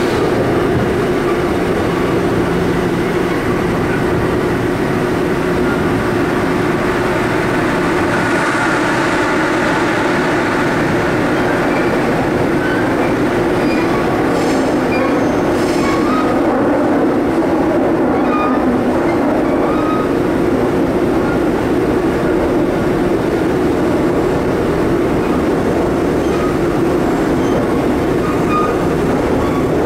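Seoul Subway Line 5 train heard from inside the car while running between stations in the tunnel: a steady, loud rumble of wheels on rail and traction motors, with two sharp clicks about halfway through.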